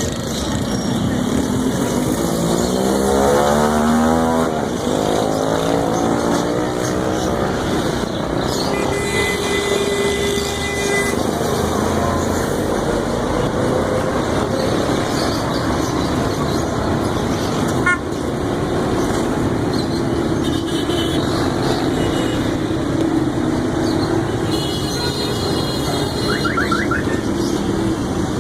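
Busy street traffic: motorcycles and cars passing, with an engine revving up a few seconds in and a horn sounding briefly near the middle.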